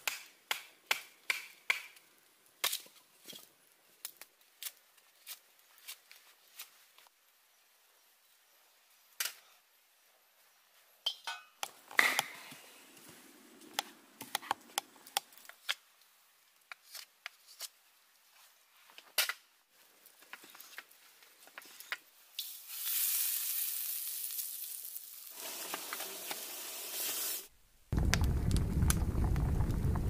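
A knife cutting and splitting wood: a quick run of sharp clicks, about three a second, then scattered single knocks. About 23 s in, food sizzles in a pan for about five seconds, and music starts near the end.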